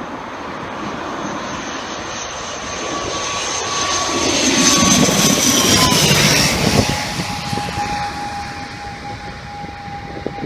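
High-wing twin-turboprop airliner flying low overhead on landing: its engine and propeller whine grows louder to a peak about five seconds in, then drops in pitch as it passes and fades away.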